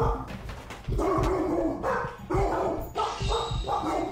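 Cane Corso and a second dog barking repeatedly in quick, loud bursts: aggressive barking at a visitor coming into the house.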